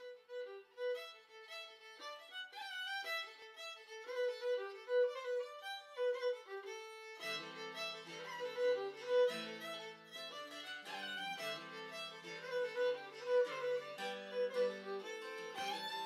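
Background instrumental music: a single melody of held notes, with lower accompanying parts coming in about seven seconds in.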